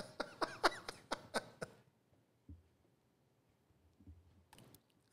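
A man's soft, breathy chuckling: a quick run of short laughs over the first couple of seconds, then near silence.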